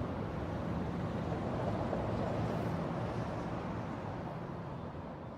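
Small motor inside a metal toy robot running and jiggling it, a continuous dense rattle and buzz of metal parts, slowly fading out near the end.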